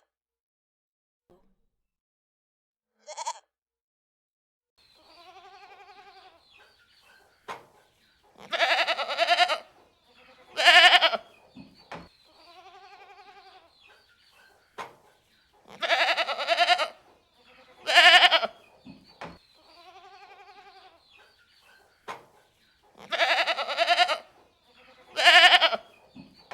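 Goats bleating: a softer, drawn-out bleat followed by two loud bleats, with the same group repeating three times about every seven seconds. A single short bleat sounds about three seconds in.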